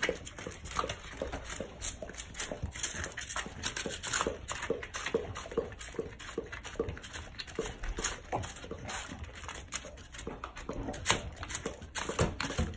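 Two dogs, a golden retriever and a black dog, licking and lapping frozen dog ice cream out of plastic bowls: a quick run of wet licks, several a second.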